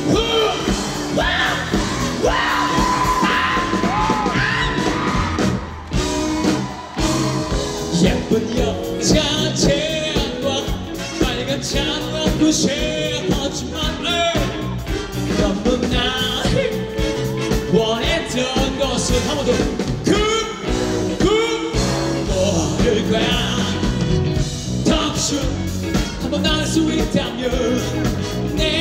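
Live rock band playing amplified through a PA, with a voice singing over the drums and guitars.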